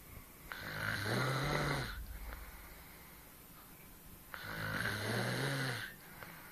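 A woman snoring in her sleep: two long snores about four seconds apart, each lasting about a second and a half, a low buzzing tone under a breathy hiss.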